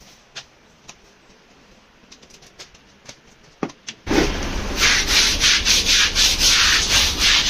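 A wet, soapy carpet-type rug being scrubbed by hand with a brush: brisk, rhythmic scraping strokes, about three a second, starting about four seconds in after a few faint knocks.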